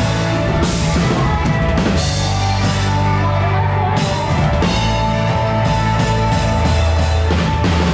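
Live rock band playing through amplifiers during a soundcheck: drum kit with repeated cymbal crashes, a heavy one about four seconds in, over sustained electric guitar and a steady low end.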